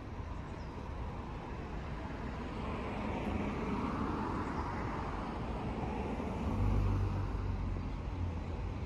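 City street ambience: light road traffic passing on a quiet main street, one vehicle swelling past around the middle, then a deep low rumble for about a second near the end.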